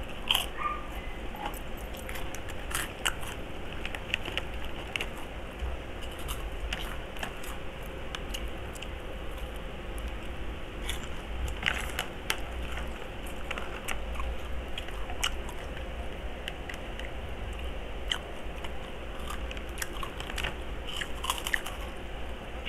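Close-up crunching and chewing of chicharon (crisp fried pork cracklings), with irregular crisp crunches scattered throughout over a steady low hum.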